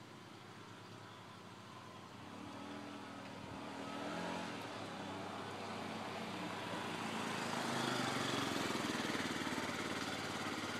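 Yamaha C3 50cc four-stroke scooter engine running as the scooter approaches, growing steadily louder and staying loud from about eight seconds in as it comes close.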